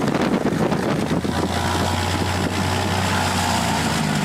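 Cessna 185's air-cooled flat-six piston engine and propeller running at low power just after start-up, settling into a steady note about a second and a half in.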